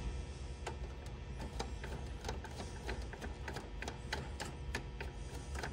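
Screwdriver backing out a screw from the sheet-metal network interface panel of an HP LaserJet 4200 printer: a string of light, uneven clicks, roughly two a second, over a steady low rumble.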